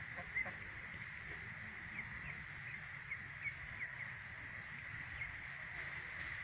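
Flock of young white ducks giving scattered short, high peeps, about a dozen over a few seconds, above a steady high-pitched drone.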